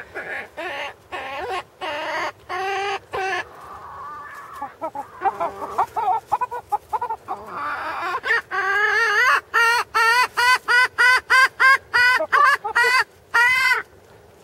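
Chickens clucking in short, pitched calls: a few spaced calls at first, then a quicker, louder run of calls in the second half that stops shortly before the end.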